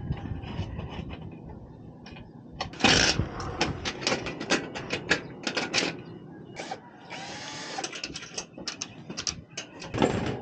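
Rapid, irregular clicks and knocks of aluminium solar mounting rails, clamps and tools handled on a metal roof. There is a louder noisy stretch about three seconds in and another around seven to eight seconds.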